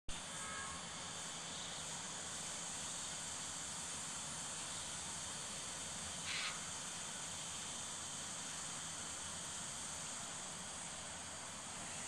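Steady high-pitched insect chirring, with a brief rasp about six seconds in.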